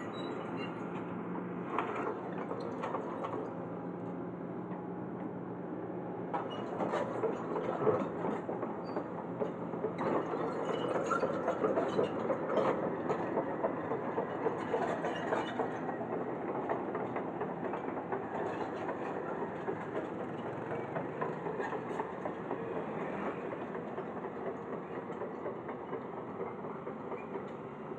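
Jonyang JY623E crawler excavator travelling on its steel tracks: the diesel engine runs under a continuous clanking rattle of the track chains, loudest in the middle of the stretch.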